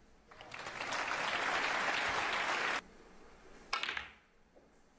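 Audience applauding in the arena for a well-played plant. The clapping lasts about two and a half seconds and stops abruptly.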